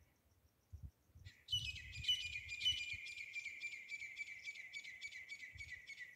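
Grey francolin calling: a rapid series of sharp notes, about four a second, starting about a second in and sliding slightly down in pitch.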